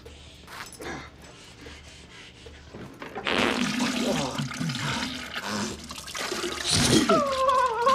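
Toilet noise from behind a closed bathroom door: after about three seconds of near quiet, a loud rushing, splashing water sound sets in, with low tones sliding downward through it. Near the end a high, wavering pitched sound begins.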